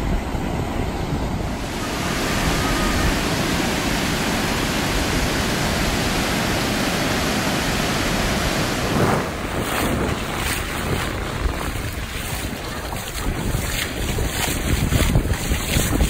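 Sea surf breaking and washing in over a flat, shallow sandy beach, a steady rush of water. From about nine seconds in, wind buffets the microphone in short gusts over the surf.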